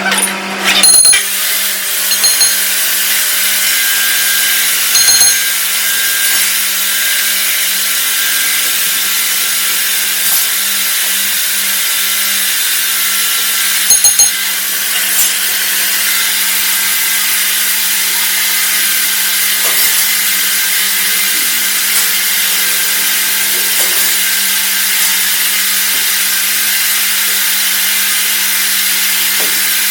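Metal lathe running: a steady motor hum under a loud, even hiss, with a few short clicks and knocks in the first half.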